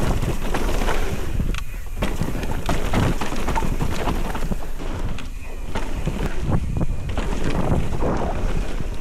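Wind buffeting the microphone of a mountain bike at speed on a rough downhill trail, with the bike clattering and knocking over bumps and tyres rolling on dirt.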